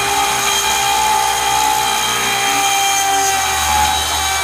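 Router spindle on an MPCNC running at speed while its end mill bores helically down into aluminum stock: a steady high whine of many tones over hissing cutting noise.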